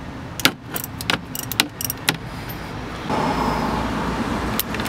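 Sharp metallic clicks as the oil drain bolt on a Yamaha TW125 engine is turned out by hand, about five in the first two seconds, then a steady rushing noise that starts about three seconds in.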